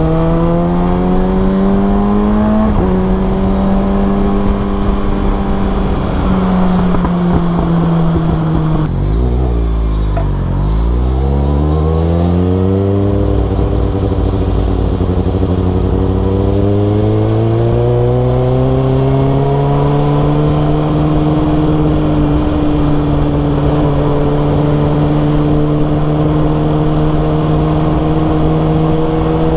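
Kawasaki Ninja ZX6R's inline-four engine on the move: revs climb and drop back a few seconds in as it changes up a gear, fall away about a third of the way through, then climb again and settle to a steady cruise.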